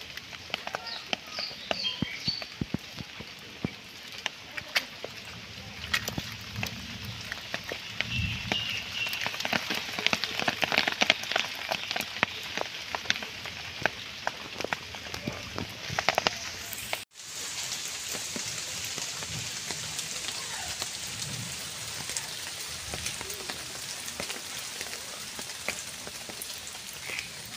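Rain falling on wet ground and foliage, with many scattered sharp taps and drips in the first half. After a brief dropout about halfway through, it settles into a steadier, even rain hiss.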